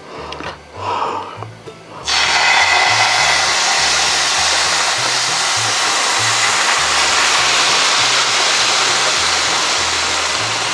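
A loud, steady rushing hiss starts suddenly about two seconds in and holds, over background music with a repeating bass line.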